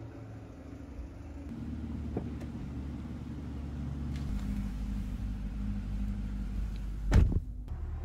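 Mid-engine V8 of a C8 Chevrolet Corvette idling steadily, with one short, sharp knock about a second before the end.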